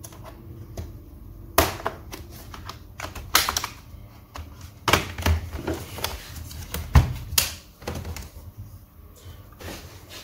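Irregular clicks, taps and knocks of a laptop being handled and worked on at a repair bench, with several sharper knocks spread through.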